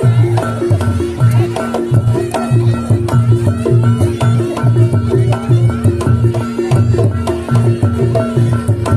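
Reog Ponorogo gamelan music: deep drum strokes about twice a second under quick clicking percussion and a steady held tone.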